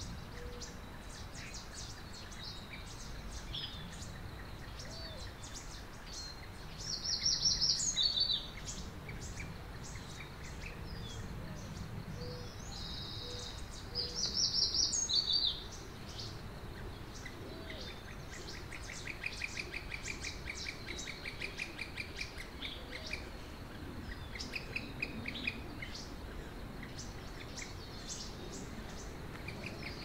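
Several songbirds singing and chirping, with short high chirps throughout over a soft background hiss. Twice, about seven and fourteen seconds in, one bird sings a louder, brief song phrase, and later a rapid trill repeats for several seconds.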